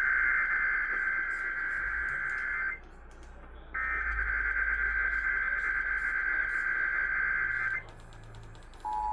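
Emergency Alert System SAME header: two long, raspy digital data bursts of about four seconds each, separated by a one-second gap. Near the end the steady two-tone EAS attention signal begins.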